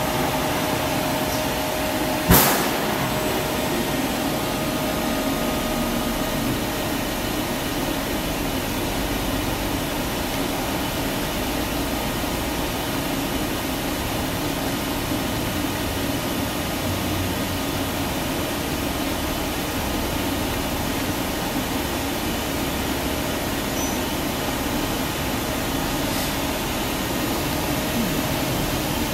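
Doosan DNM400 vertical machining center running, a steady mechanical hum and hiss as its table traverses along the axis. There is a thin whine over the first few seconds and a single sharp click about two seconds in.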